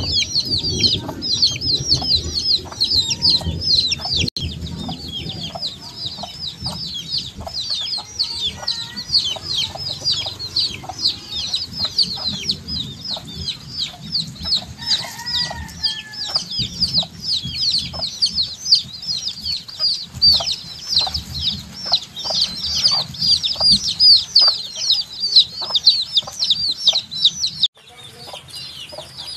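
A brood of baby chicks peeping constantly: a dense stream of rapid, high, downward-sliding peeps, with a few lower calls mixed in. The sound changes abruptly near the end.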